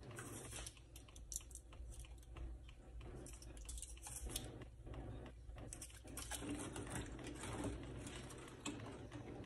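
Quick, irregular clicks and taps of utensils: a metal scoop dips sugar from a plastic container, then a spoon stirs the juice in a plastic pitcher, knocking against its sides.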